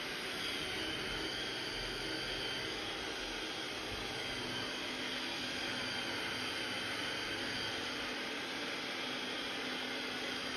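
iHome AutoVac Nova robot vacuum running, a steady rushing of its suction motor with a faint high whine over it.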